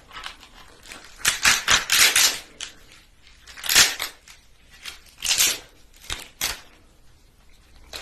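Cooked lobster tail shell being cracked and pried apart by hand close to the microphone: bursts of crackling and snapping shell, the biggest a little after a second in and around four seconds, with shorter cracks near five and six seconds.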